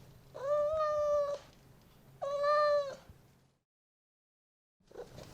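An animal's two drawn-out calls, each about a second long and held at an even pitch, with the second slightly shorter. The calls stop about three and a half seconds in, and the sound cuts to silence.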